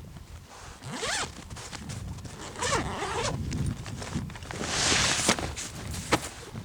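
A zipper pulled in a few quick strokes, with a couple of sharp clicks toward the end.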